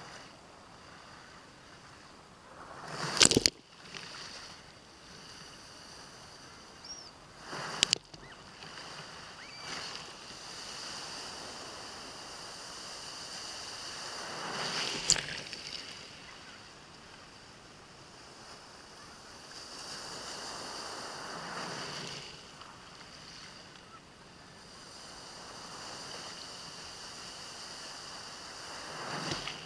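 Shallow surf washing over and around a GoPro lying among wet beach stones, heard muffled through the camera's waterproof housing. The water rises and falls in surges every few seconds, with a few sharp clicks or knocks, most clearly about three, eight and fifteen seconds in.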